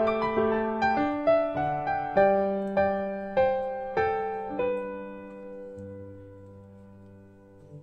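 Background piano music: single notes struck at a gentle pace, slowing to a held chord that fades away over the last few seconds.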